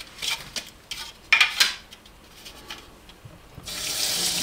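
Kitchen containers being handled: a few clinks and a short scraping rub about a second and a half in. Near the end a kitchen tap is turned on and water starts running steadily.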